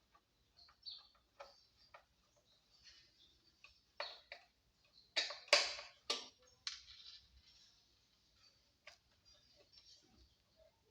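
Scattered light clicks and knocks from handling a subwoofer against its speaker box while test-fitting it, with a few louder scraping sounds around the middle.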